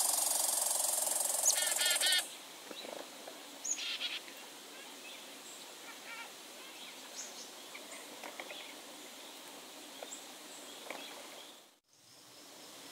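Wild songbirds calling in a forest clearing: scattered short chirps and brief warbled phrases. For the first two seconds a loud steady hiss lies over them and then cuts off. Near the end the sound drops out briefly, then a faint steady outdoor background follows.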